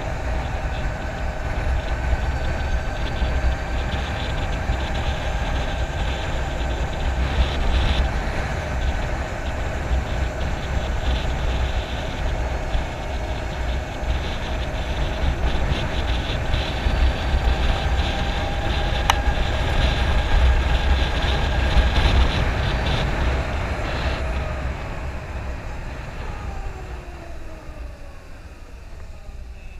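Harley-Davidson LiveWire electric motorcycle riding at speed: a steady high whine from its electric drive over heavy wind buffeting. Near the end the whine falls in pitch and the sound dies down as the bike slows.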